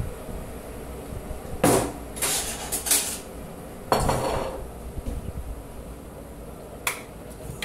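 Metal teaspoon clinking and scraping against a glass jar and a stainless-steel saucepan while dried lime flowers are spooned into the pan. The knocks come singly and in a quick cluster a couple of seconds in, with a last click near the end.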